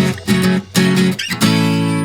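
Music: strummed acoustic guitar playing chords in short, choppy strokes about twice a second.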